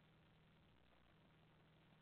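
Near silence: a faint steady low hum and hiss of background noise.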